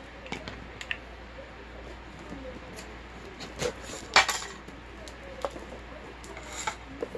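Scissors cutting into a cardboard cereal box and prying its flaps open: scattered light clicks, snips and cardboard rustling, with one louder snap about four seconds in.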